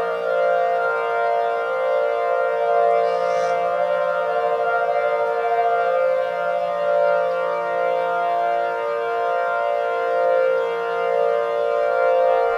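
Many civil defense siren tones layered into a sustained synthesizer chord. The overlapping pitches waver and beat against each other, and the chord changes a few times.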